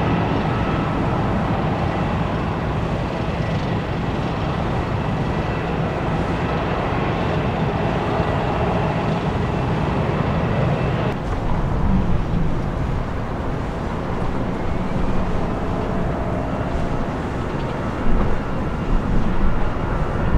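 Airbus A320 jet engines running as the airliner taxis onto the runway and begins its takeoff roll: a steady rumble and hiss with a faint high whine in the first half, growing louder and uneven near the end.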